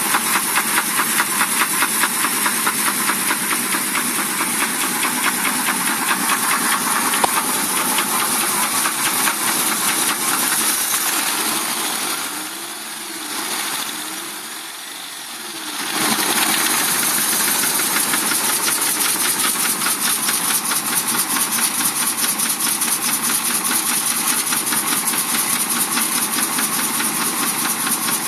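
Chevrolet 230 straight-six engine in a 1967 Checker Marathon idling steadily, warming up after a cold start, with an even rapid firing pulse over a steady high hiss. About halfway through it drops in level and wavers for a few seconds, then returns to the same steady idle.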